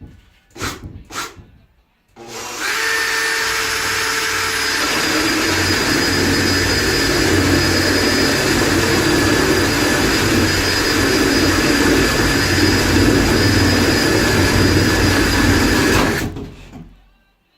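Power drill with a spade bit boring a hole about an inch across, running steadily for about fourteen seconds and then stopping. A few light knocks come before it starts.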